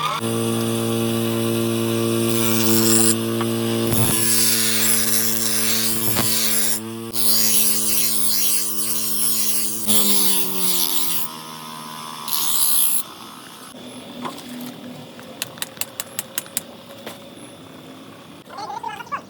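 Electric grinding machine running with a steady motor hum and harsh grinding noise, then switched off and spinning down about ten seconds in. A quick run of light ticks follows near the end.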